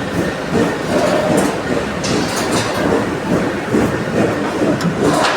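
Heavy machinery running with a loud, continuous rumble and rattle, with scattered sharp metallic knocks and clanks.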